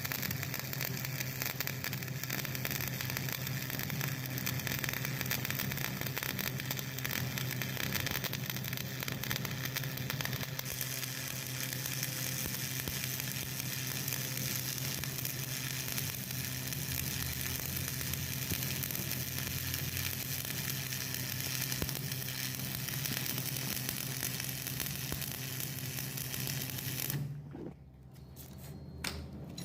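Electric arc welding a root pass: the arc crackles and sizzles steadily over a low mains hum, then cuts off near the end as the arc is broken.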